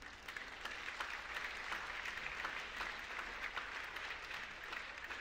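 Audience applauding, many hands clapping at once. It starts suddenly and holds steady.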